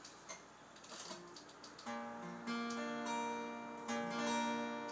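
Acoustic guitar strumming chords, beginning about two seconds in after a few light taps, with each chord left to ring.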